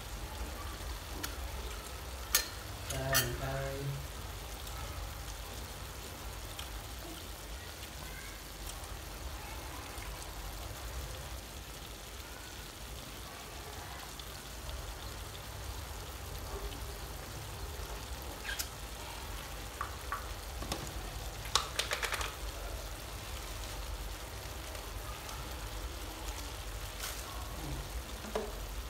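Beef and okra frying in a steel wok over a gas burner: a steady sizzle, with a few sharp pops and clicks a couple of seconds in and again about two-thirds of the way through.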